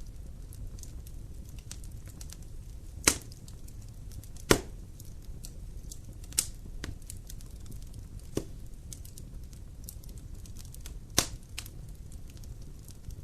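Wood fire burning in a fireplace: a low steady rumble with light crackling throughout, and five sharp, louder pops spread across it, the loudest about four and a half seconds in.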